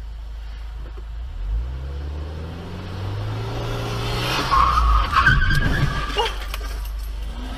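Car engine revving up with rising pitch, then tyres squealing loudly for a second or two, broken by a few sharp clicks, over the steady low hum of a car on the move.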